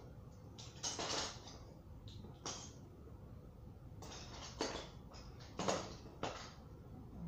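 Small plastic toy pieces clattering and knocking as they are picked up and sorted by hand, in a few irregular bursts.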